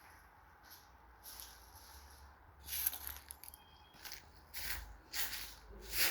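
Footsteps crunching, a few irregular steps starting about three seconds in and getting louder.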